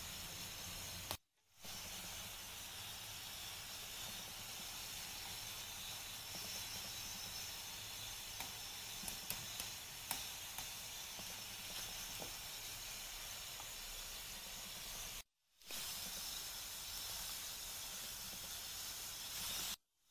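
Chili-paste sauce simmering in a frying pan, a steady bubbling hiss, with a few light clicks of a metal spoon against the pan a little over halfway through. The sound drops out abruptly three times.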